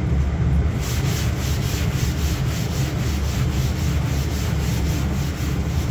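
Hand block-sanding of a car's epoxy-primed steel rear quarter panel with 180-grit sandpaper: rhythmic back-and-forth rubbing strokes starting about a second in, cutting back a black guide coat to show high and low spots. A steady low hum runs underneath.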